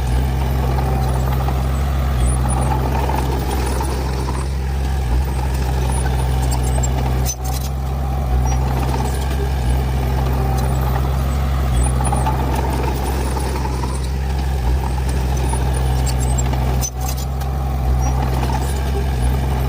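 Heavy diesel earth-moving machinery running steadily under load, with a deep low engine drone and a brief break twice.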